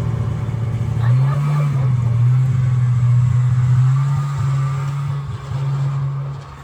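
Snowmobile engine running, its pitch rising about a second in as it revs up, holding steady, then dropping away in loudness near the end.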